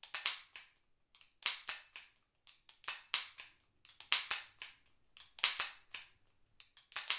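Chiappa Rhino 50DS and Smith & Wesson Performance Center revolvers being dry-fired, with sharp metallic trigger and hammer clicks coming in irregular groups of two or three.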